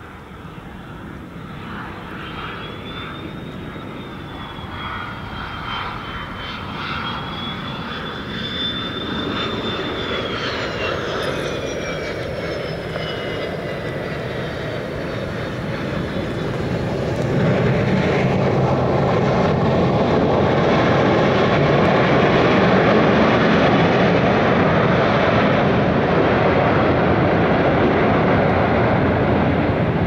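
McDonnell Douglas MD-87 jet with two rear-mounted Pratt & Whitney JT8D turbofans, landing. A high engine whine grows louder on approach and falls in pitch as the jet passes. About seventeen seconds in, after touchdown, the sound jumps to a heavier, louder steady roar, the sign of reverse thrust on the rollout.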